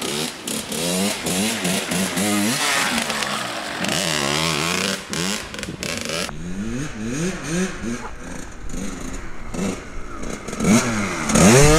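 Kawasaki KX100 two-stroke dirt bike being ridden, its engine revving up and dropping back again and again. It gets louder near the end as it comes close.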